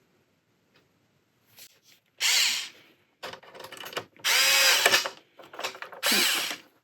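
Electric screwdriver whirring in three short bursts, about two seconds apart, as a screw is driven into the brittle 40-year-old ABS light cover of an overlocker.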